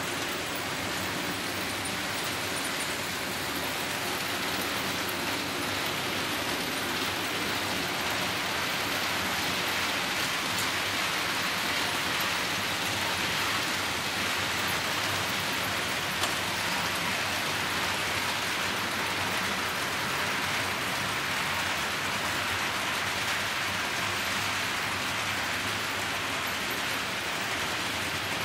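Märklin model trains rolling over the layout's track: a steady rushing hiss, a little louder in the middle as the freight train comes out of the tunnel.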